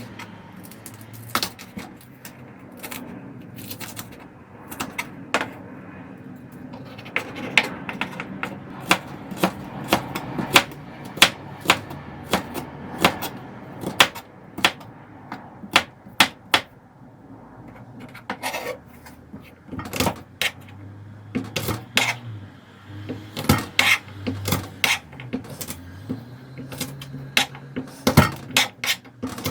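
Kitchen knife knocking on a cutting board in quick, irregular runs as vegetables are cut.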